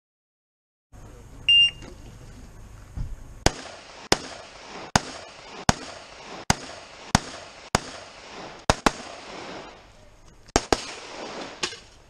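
An electronic shot timer gives one loud start beep, and about two seconds later a rifle starts firing: about a dozen shots, mostly under a second apart, with two quick pairs and a short pause near the end as the shooter moves between positions.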